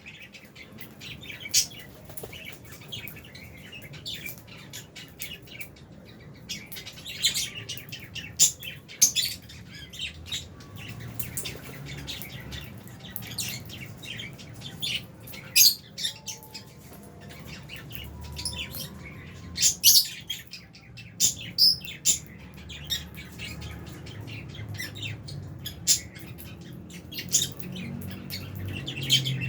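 A flock of Fisher's and albino lovebirds chirping and squawking: many short, sharp, high-pitched calls coming in irregular clusters.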